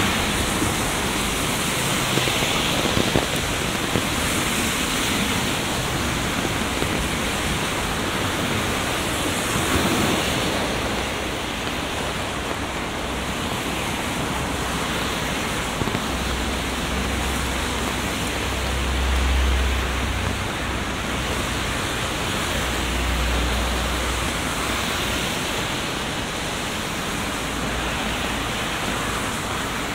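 Heavy rain falling as a steady hiss. In the second half a low rumble swells up twice and fades.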